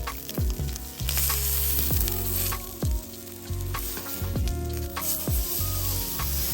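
Meat sizzling on a hot iron griddle plate. The sizzle swells about a second in and again near the end. Background music with steady chords and deep drum beats plays underneath.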